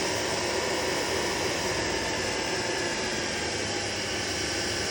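Spindle of a Sharp TMV vertical milling machine running at high speed, around 3700 RPM, with a steady whirring hum.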